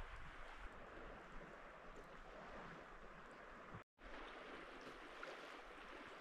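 Faint, steady rush of sea water at the shore, with a brief dead gap near the middle.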